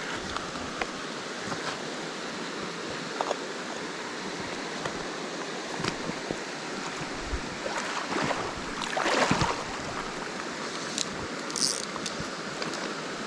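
Small mountain stream rushing over rocks, a steady rush of water that swells briefly louder about eight to nine and a half seconds in.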